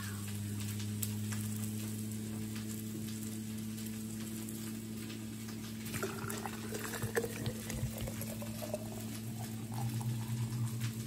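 Water poured into a glass gallon jar over tea bags, starting about halfway through, the pitch of the pour rising as the jar fills. A steady low hum runs underneath.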